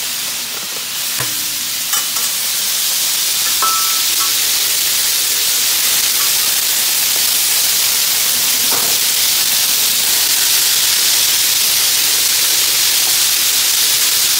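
Plaice fillets frying on a hot flat-top griddle: a steady sizzle that builds over the first few seconds and then holds. A few light clicks and scrapes come from a metal spatula on the griddle, near the start and again about nine seconds in.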